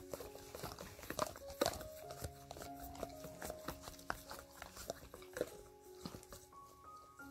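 A husky licking and chewing at a small treat cup, with frequent wet clicks and knocks of tongue and teeth against the cup, over background music with held melodic notes.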